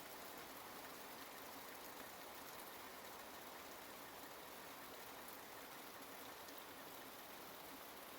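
Rain falling steadily, a soft even hiss.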